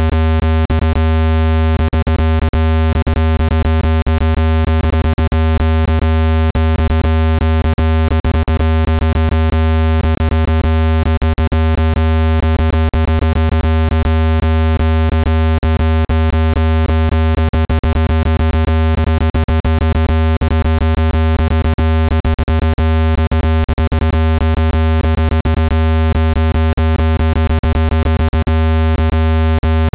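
Steady, loud, low electronic tone with many overtones and frequent brief flickers. It is a speaker-cleaning sound, played so that its vibration shakes dust out of a phone or speaker grille.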